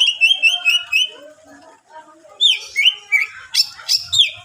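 Cucak ijo (green leafbird) singing: a fast run of about eight repeated high chirps in the first second, a few softer lower notes, then loud sweeping whistled phrases near the end.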